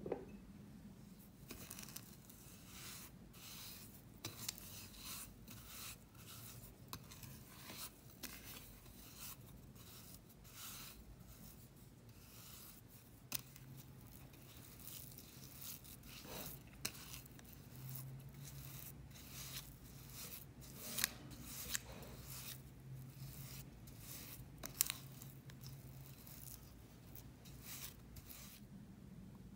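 Silicone spatula scraping and pressing softened butter and sugar against the sides of a glass mixing bowl, creaming them in a long run of irregular strokes. A few louder taps stand out.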